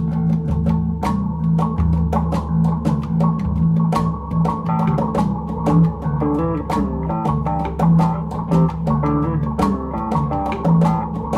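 Background music: plucked guitar and bass over a steady drum beat.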